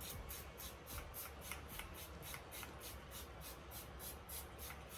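Spray bottle of heat-protectant spray spritzed onto hair over and over, a quick run of short faint hisses at about four a second.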